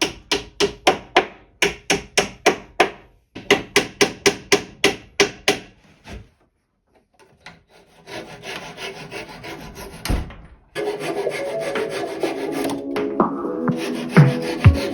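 A hand tool rasping wood in quick, even strokes, about four or five a second, in two runs with a short break between them. After a lull there is a steady hiss and one thump, and music comes in for the last few seconds.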